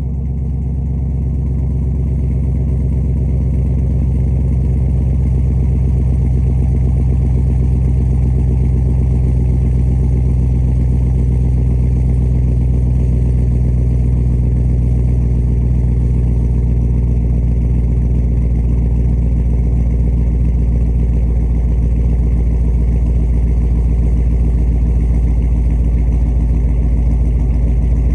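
Bone-stock GM 6.0-liter LS V8 idling steadily on a cold start, a little louder over the first few seconds and then even.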